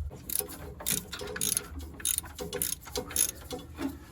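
Hand ratchet wrench clicking in short repeated strokes, about two a second, as a bolt is worked on the van's engine.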